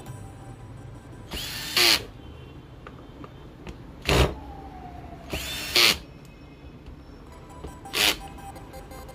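Small cordless screwdriver turning the screws on a motorcycle carburettor bank in four short bursts a couple of seconds apart.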